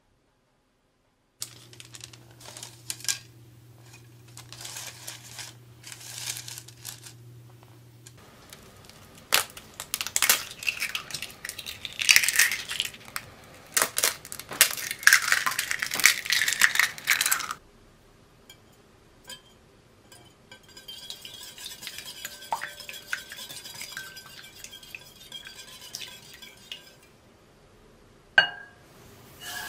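Eggs cracked against a glass mixing bowl: sharp cracks and crunching eggshell, loudest in the middle. Softer rustling and handling sounds come first, faint clinks follow, and near the end a wire whisk clicks against the glass bowl.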